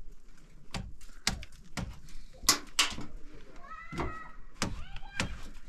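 A series of sharp knocks or blows, roughly two a second, with a short high call twice in the last two seconds.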